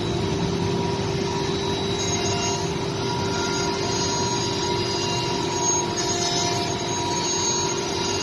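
CNC wood router with a 9 kW ATC spindle running, a steady whine over broad, even machine noise.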